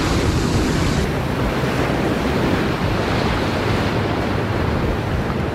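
Waves breaking and washing over jetty rocks in choppy surf, a steady rush of water, with wind buffeting the microphone.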